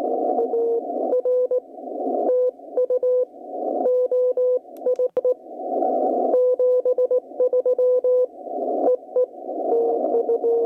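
Weak Morse code (CW) signal from a ham radio receiver, played through a BenQ treVolo voice-clarity speaker: a single mid-pitched beeping tone keyed on and off in dots and dashes. Between the characters a narrow band of hissing atmospheric static swells up, and the speaker's noise reduction takes out some of it.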